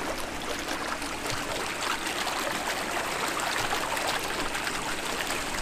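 Tuff Spa TT650 hot tub with its jets running, water churning and bubbling steadily in the tub.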